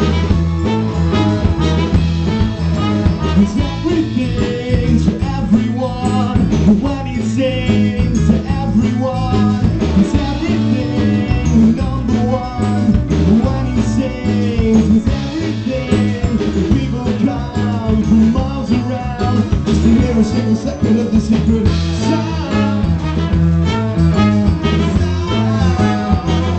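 Live band playing loud, upbeat music: drums, electric guitar, trumpet and keyboards, with singing over it.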